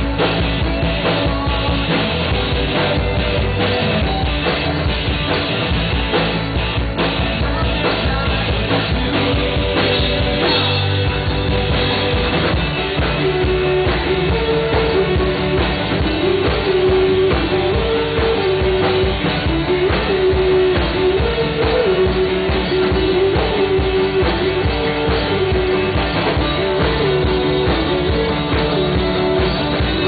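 Live rock band playing: drum kit, electric and acoustic guitars and bass together. About a third of the way in, a short repeating melody line comes in over the band.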